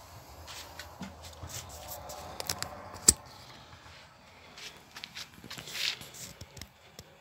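Scattered rustling and handling sounds with one sharp click about three seconds in.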